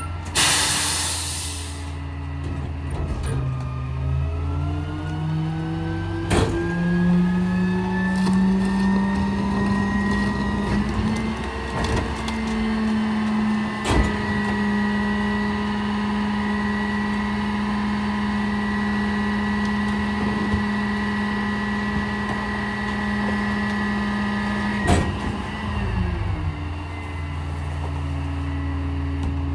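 McNeilus rear-loader garbage truck working its packer: a short air hiss, then the diesel engine revs up over several seconds and holds at high speed to drive the hydraulic compaction cycle, with a few sharp knocks. Near the end the engine drops back to idle.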